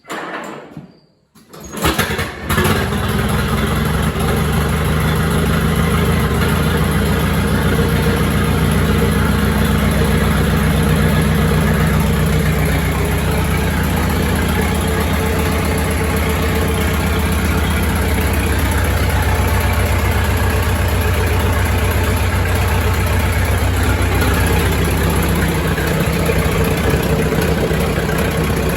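1928 Farmall Regular's four-cylinder engine, hand-cranked, catches about two seconds in and runs steadily with an even firing beat.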